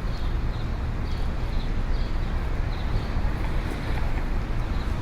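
Street ambience: a steady low rumble of traffic with wind on the microphone, and short high chirps repeating about twice a second.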